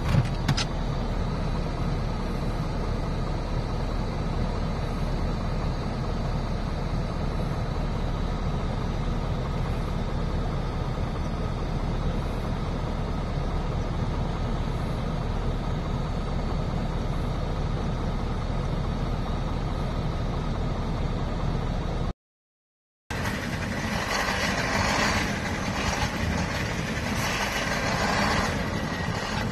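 KAMAZ 43118 6x6 fuel tanker's diesel engine running steadily while the truck pushes through deep snow, with a couple of sharp clicks at the very start. After a moment of silence about three-quarters through, engine noise returns louder, swelling and easing a few times.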